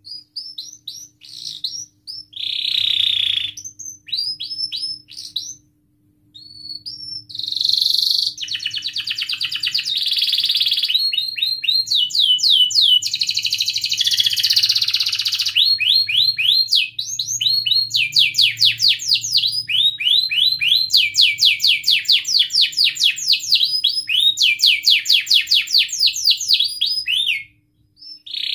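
Domestic canary singing a long, loud song of rapid chirping trills and rising whistled sweeps, broken by short pauses in the first seven seconds, then running on almost without a break until near the end.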